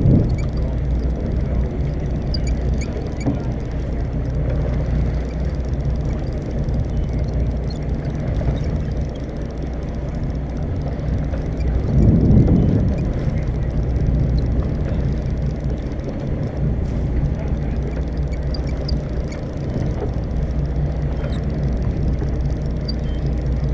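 Charter fishing boat's engine running steadily, a deep even hum, with a brief louder rush about twelve seconds in.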